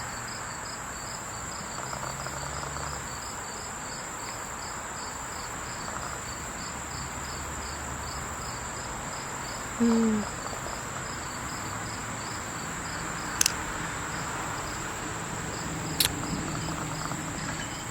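Insects chirping outdoors: a steady high trill with a second chirp pulsing about twice a second. A brief low sound about ten seconds in is the loudest moment, and two sharp clicks follow later.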